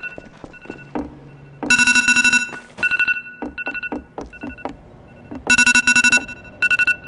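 Electronic beeping tones, some short pulses and some longer buzzy bursts, about two seconds and six seconds in.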